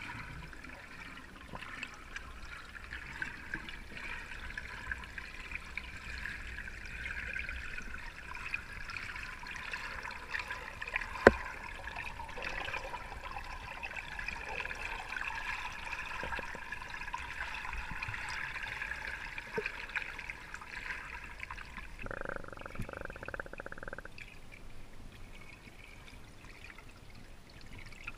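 Muffled underwater water noise heard through a camera's waterproof housing: a steady hiss, with one sharp click about eleven seconds in.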